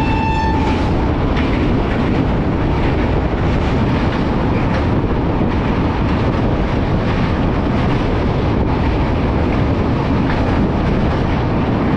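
Passenger train running at speed across a steel truss bridge, heard from inside the coach: a loud, steady rumble with wheel clatter over the rails. A held horn note cuts off about half a second in.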